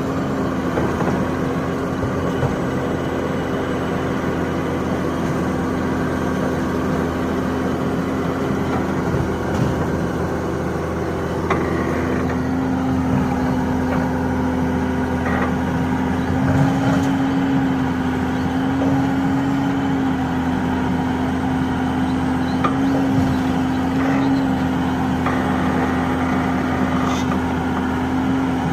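Hitachi hydraulic excavator's diesel engine running steadily, its pitch rising briefly several times from about halfway through as it works under load, with a few short knocks.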